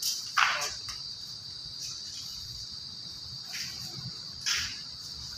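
A cricket chirring steadily as a constant high trill, over a few brief rustles as a large sheet is lifted and laid over the foam sofa frame.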